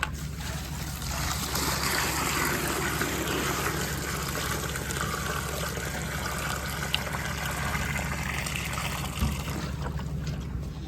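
Water pouring steadily into a container while horses are being watered, over the steady low hum of a running engine, with a small knock near the end.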